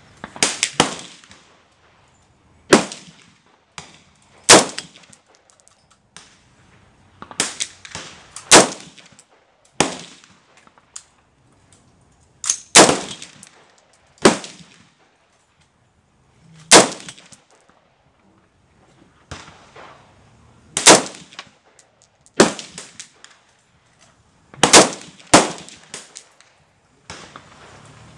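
AR-15 rifle firing single shots in slow semi-automatic fire: sharp reports one to a few seconds apart, some louder and some fainter. The cartridges are being fed from a magazine that was left fully loaded for 11 years.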